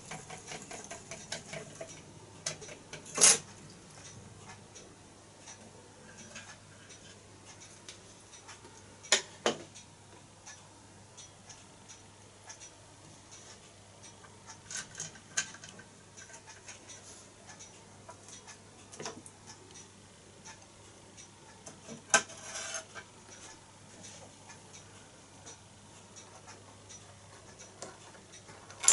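Small metal clinks, taps and rubbing as the fittings of a Mastrand toy steam traction engine are handled, with a few sharper knocks about three, nine and twenty-two seconds in, over a faint steady hum.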